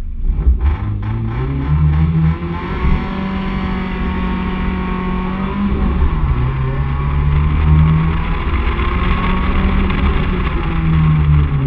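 BMW 318i E30's four-cylinder engine pulling hard from a standing start, its pitch climbing and dropping back several times through the run. There is a rapid stutter in the first second.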